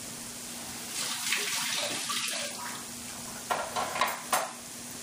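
Batata vadas, potato balls in gram-flour batter, deep-frying in hot oil in a small kadai: a steady hiss of sizzling oil that swells for a second or so about a second in, with a few short clicks near the end.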